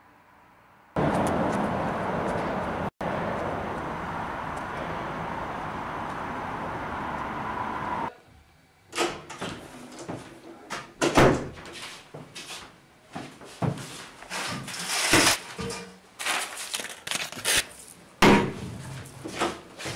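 A steady rushing noise for about seven seconds, cutting off sharply. Then a door opening and swinging shut, with a run of knocks, bumps and handling noises, the loudest near the middle and near the end.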